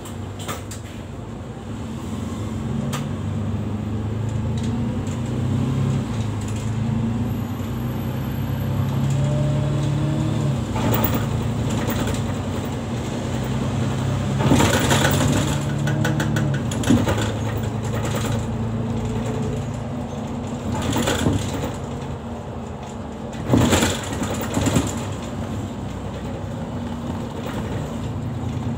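City bus engine and drivetrain running under way, heard inside the passenger cabin, with a whine that rises in pitch as the bus gathers speed. Several short loud rattles and knocks from the bus body come about halfway through and again a few seconds later.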